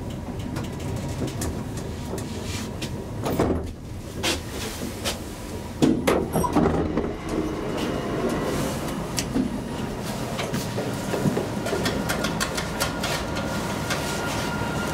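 1972 Kone Asea Graham inclined elevator cab running, with a steady rumble full of rattles and clicks and two bursts of louder clunks a few seconds in. Near the end a hand works the cab door.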